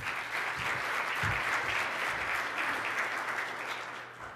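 Audience applauding, a roomful of people clapping that thins out and fades near the end.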